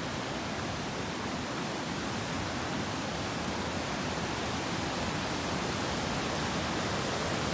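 Rushing water pouring through a small open gate of a river dam, a steady even rush that grows slowly louder.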